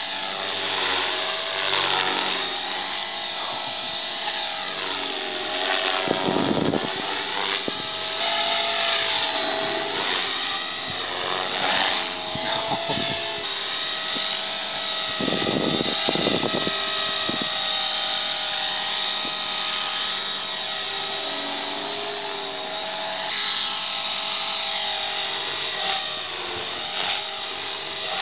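HK450GT 450-size electric RC helicopter in aerobatic flight: a steady high whine of the motor and rotor head, its pitch sliding up and down as the model swoops and passes. A few brief louder rushes of noise break in twice, about six and fifteen seconds in.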